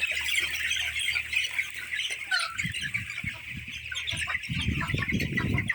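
A flock of poultry calling together in a dense, continuous mass of high peeping and squawking. About halfway through, low scuffling and rustling noises join in.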